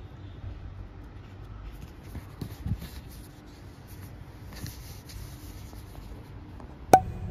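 Faint scratching and rubbing handling sounds against a low room hum, with a single sharp click near the end.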